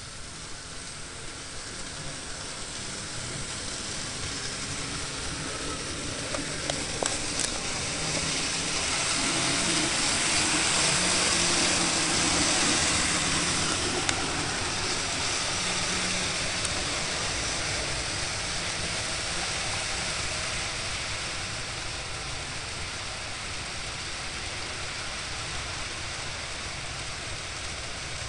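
Model freight train hauled by four Conrail SD40 model diesel locomotives running on the layout track: a steady rushing rumble of wheels and motors that builds to its loudest about ten to thirteen seconds in and then eases off.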